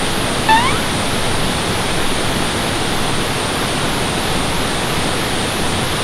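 Steady rushing of a nearby waterfall. About half a second in there is one short rising chirp.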